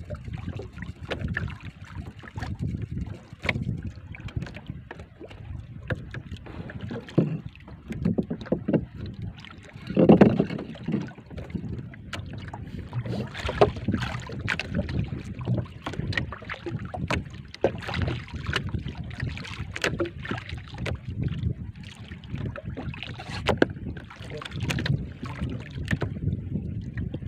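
Wind rumbling on the microphone and water sloshing around a small outrigger boat at sea, with scattered short knocks and rubbing from the boat and the fishing line being handled; the loudest swell of noise comes about ten seconds in.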